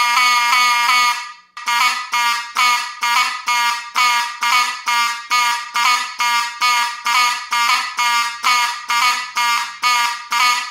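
Vintage Edwards Adaptahorn model 374 fire alarm horn being tested, a loud buzzy horn tone. It sounds continuously at first, drops out briefly about a second and a half in, then comes back as rapid repeated blasts about two and a half a second.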